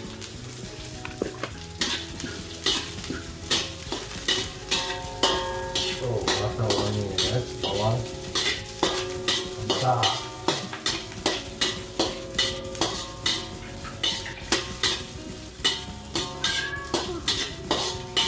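Slotted metal spatula scraping and knocking against a steel wok, about twice a second, as shallots and sliced sausage stir-fry in hot oil, with a steady sizzle underneath.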